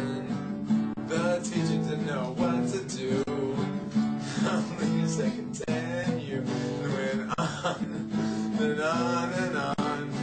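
Nylon-string classical guitar strummed, playing chords in a steady rhythm.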